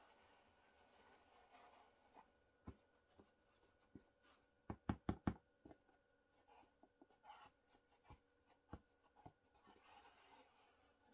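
Quiet handling of a felt hat on a wooden brim flange on a wooden bench: faint rubbing with scattered light knocks, and a quick run of four or five louder wooden knocks about five seconds in.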